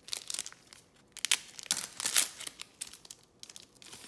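Foil wrapper of a Topps Star Wars trading card pack crinkling and being torn open by hand, in a run of short crackles that are loudest around the middle.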